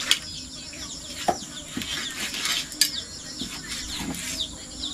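Birds chirping busily in quick, high little calls throughout, with a few sharp clinks and knocks of utensils about one and three seconds in.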